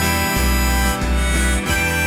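Instrumental section of a pop song with no singing: a held lead melody over a steady bass line and guitar.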